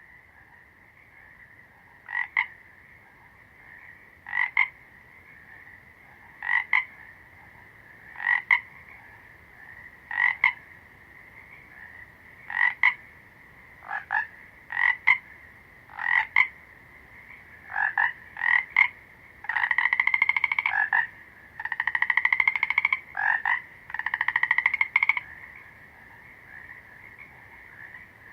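Frogs croaking: short calls about every two seconds over a steady chorus, then three longer, rapidly pulsed calls in the second half that rise slightly in pitch.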